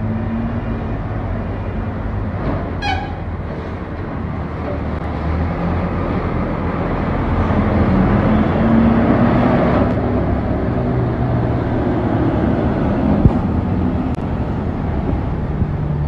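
Diesel engines of a convoy of backhoe loaders and other heavy vehicles running as they drive along the street: a steady rumble that grows louder toward the middle and then eases a little.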